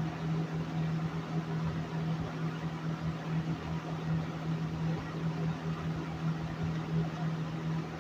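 A 1970s Roto-Aire 20-inch box fan with a Marco motor, running steadily on its high setting: an even rush of moving air over a steady low hum.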